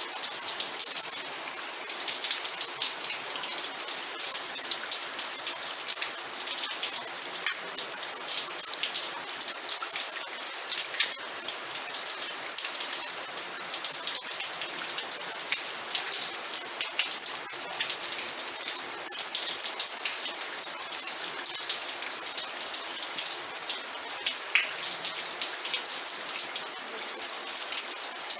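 Steady rain: a dense hiss of falling rain with many small drop ticks hitting a surface.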